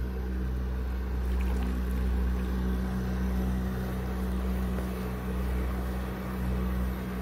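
DIY brushless electric outboard (Flipsky 65161 100kv motor) running steadily under load during a static thrust test, its propeller churning the water, with a constant low hum.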